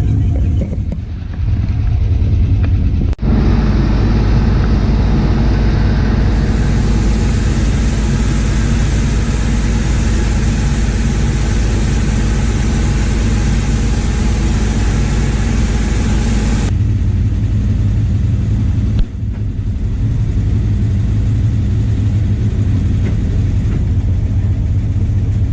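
Inboard V8 boat engines (Chevrolet 350s) running under way, a steady low drone. For a stretch in the middle it is overlaid with rushing wind and water noise, and it changes abruptly a few times. The reinstalled engine and transmission seem to be working fine.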